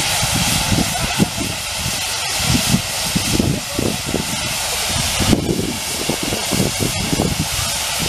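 Steady steam hiss from a standing steam traction engine, mixed with irregular low wind rumble on the microphone.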